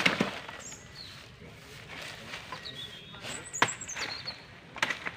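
A bunch of saba bananas being handled and pulled at among dry banana leaves: rustling with sharp snaps or knocks at the start, about three and a half seconds in and near the end. Short, high, thin whistling chirps sound between them.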